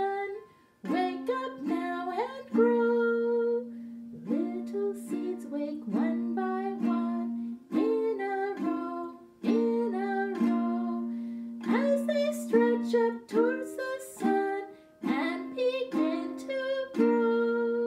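A woman singing a slow children's song, held sung notes over her own strummed ukulele chords.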